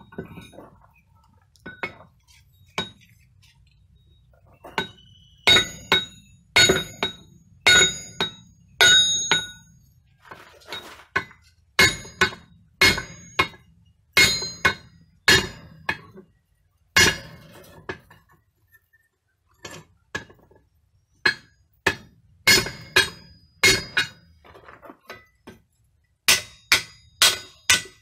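Hand hammer striking red-hot steel on a railway-rail anvil, each blow ringing with a metallic clink. The blows come about once a second, then quicken to about three a second near the end.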